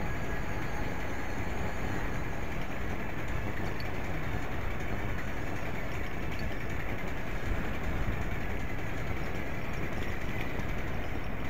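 Steady rumble of wind and road vibration on a bicycle-mounted action camera's microphone while riding.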